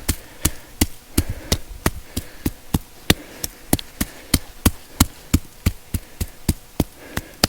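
Hammer tapping dirt down around a bedded foothold trap, bedding it firmly. The light, sharp strikes come in a steady rhythm of about three a second.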